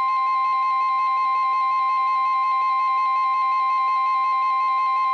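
NOAA Weather Radio's 1050 Hz Warning Alarm Tone: a loud, steady, single high-pitched tone that alerts receivers to an incoming warning. Under it a second, lower electronic alert tone from a weather-radio receiver wavers in quick, even steps.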